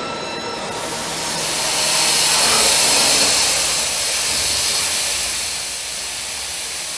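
Voortman V633 beam drilling and milling machine cutting a steel beam with its spindles, heard as a dense, high hissing machine noise. A steady whine fades out about a second in, and the cutting noise swells to its loudest a couple of seconds later, then settles.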